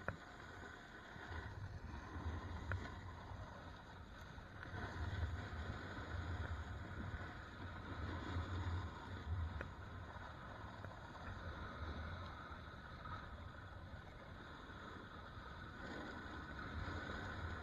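Wind buffeting the microphone of a camera carried by a rider sliding down a snowy trail: a low rumble that swells and eases with speed, over a steady hiss of sliding on snow.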